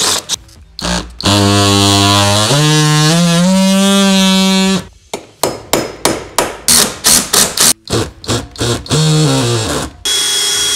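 Cordless drill running for about three and a half seconds while drilling a hole through a van's B-pillar, its pitch rising partway as it speeds up. A run of irregular sharp knocks follows, with one more short drill burst near the end.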